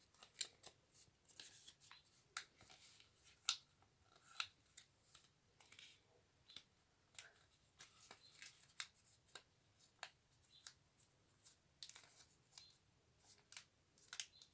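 Origami paper being folded and creased by hand: faint rustles with scattered crisp clicks and snaps, the loudest about three and a half seconds in.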